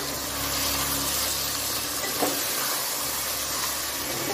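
Chopped bitter gourd, onions and spices frying in hot oil in a metal pan, a steady sizzle as a spoon stirs them, with one short knock of the spoon against the pan about two seconds in.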